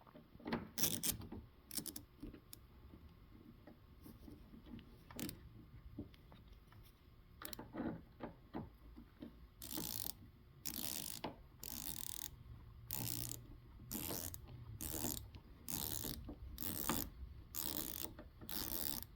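Screwdriver driving a small screw into a car door lock cylinder: scattered clicks and taps of the parts at first, then about ten even ratcheting strokes, roughly one a second, from about halfway through.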